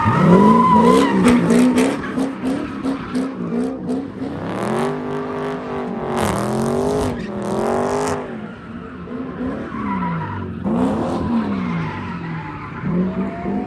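Cars doing burnouts and donuts: engines revving hard over squealing, spinning tyres. The engine note climbs and falls again and again.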